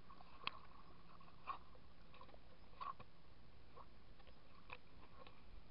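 Faint, muffled water lapping at the surface, with a few soft, scattered ticks.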